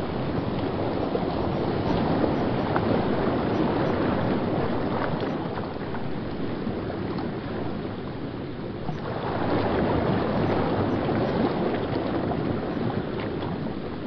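River water rushing and churning over rocks in a small rapid, a steady rush that eases briefly about two thirds of the way through and then swells again.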